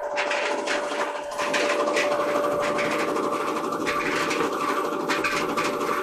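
White Westinghouse clothes dryer running with a steady hum and a fast, continuous rattle. The owner takes the rattle not for the worn drum bearing but for a wheel he mounted to keep the drum from going too far back.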